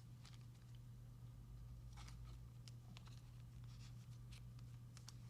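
Near silence: a steady low hum, with a few faint ticks and rustles of trading cards being handled.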